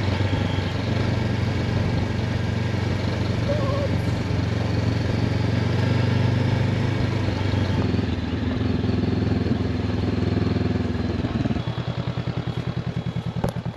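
Honda CB500X's parallel-twin engine running steadily under way. About eleven seconds in the revs drop to a slow, even throb near idle.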